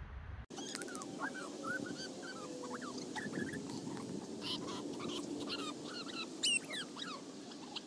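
Dog whining and yipping in many short, high, bending cries, with one sharper, louder cry about six and a half seconds in, over a steady low hum.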